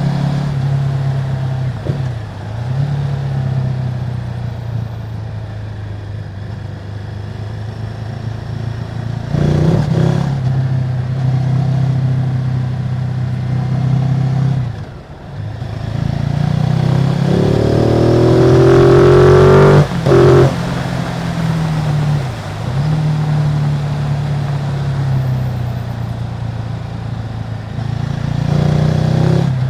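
Ducati Multistrada 950's Testastretta L-twin engine with its stock exhaust, running with a steady note that dips briefly a few times. About two-thirds through it revs up in a climbing rise that cuts off sharply.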